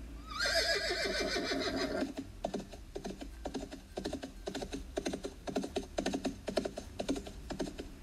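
Audiobook sound effect of a horse whinnying for about two seconds, followed by hooves clip-clopping in a steady rhythm, played back through the ebook's audio player.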